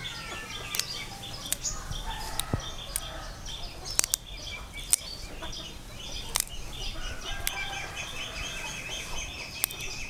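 Birds chirping and chickens clucking on and off, with a few sharp snaps of long beans being broken by hand.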